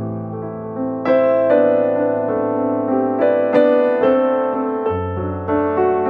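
Background piano music: single notes struck about every half second over low held notes, with a new low note coming in near the end.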